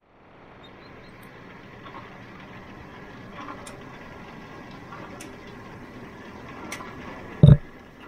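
Grimme SE 75-55 single-row potato harvester running, with a steady mechanical noise from its sieving web and conveyors as potatoes tumble over them, and a few sharp clicks. Near the end comes one loud, short thump.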